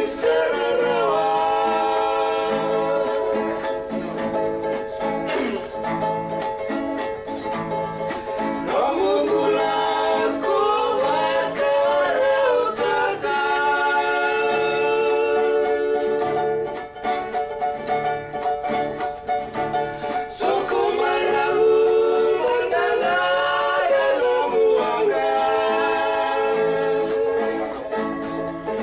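Men singing a song together, accompanied by strummed acoustic guitars in a steady rhythm.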